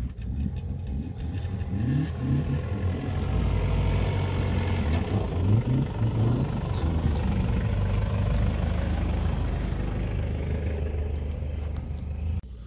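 A car's engine revving in rising surges under load as it drives up and over a steep bump. It grows louder toward the middle, then eases off.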